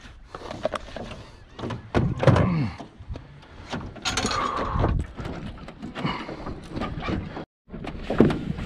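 Knocks, thunks and plastic clatter from handling in a jon boat as a folding plastic fish-measuring board is closed up and gear is moved about.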